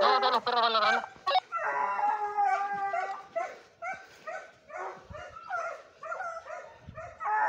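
Hunting dogs baying in pursuit of game. A quick run of warbling yelps gives way to a long drawn-out bay, then to short yelps a few times a second.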